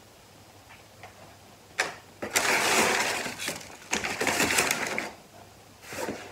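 Packing material being handled as a parcel is unpacked: a click, then two long bouts of rustling and crinkling with a short one near the end.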